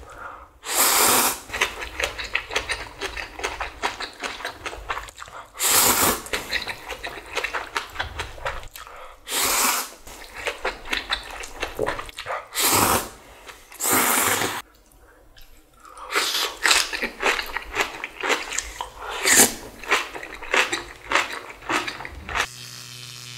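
A person slurping instant ramen noodles in several long, loud slurps, with wet chewing and smacking in between.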